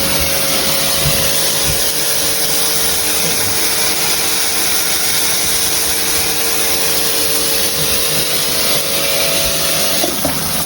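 Mira Sport Max Airboost electric shower running, its water spraying in a steady hiss, with a faint steady whine that stops about ten seconds in.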